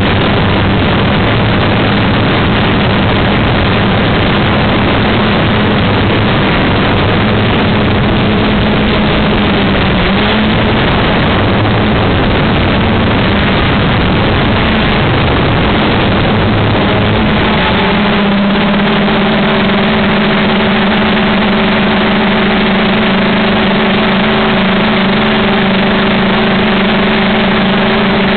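Loud, steady motor-and-propeller drone of a radio-controlled model aircraft, heard from a camera riding on it, under a heavy rushing noise of wind and vibration. About 18 seconds in the motor's pitch changes and it settles into a steadier, higher hum.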